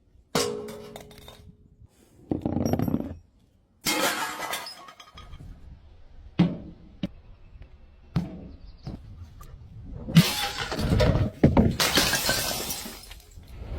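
Glass bottles dropping and shattering in a series of crashes. A ringing clink comes first, then bursts of breaking glass, a few sharp ticks of fragments, and a longer, louder run of shattering near the end.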